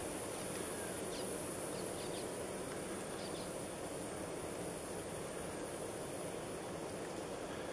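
Steady outdoor background noise with a constant faint high hiss. A few faint, short high chirps come in the first half.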